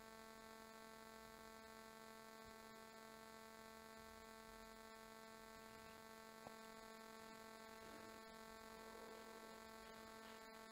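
Near silence with a faint, steady electrical hum made of many even tones. There is one small click about six and a half seconds in.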